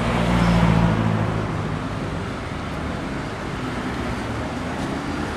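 Street traffic: a motor vehicle's engine hum swells and passes close in the first second or so, then steady traffic noise.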